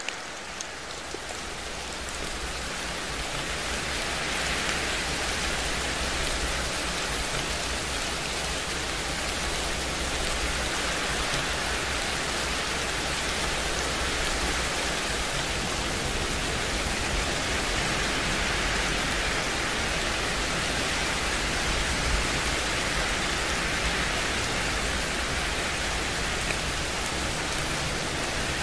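Steady rain ambience: an even, continuous hiss of rainfall with a low rumble underneath, swelling and easing slightly.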